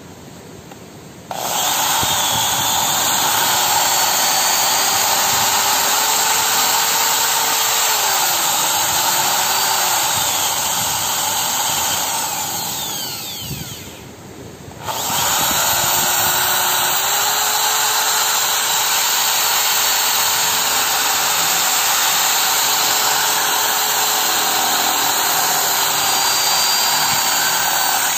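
Corded electric drill boring through the flattened end of a metal pipe. It starts about a second in and runs with a steady whine that dips in pitch as the bit bites, stops for about two seconds near the middle, then runs again.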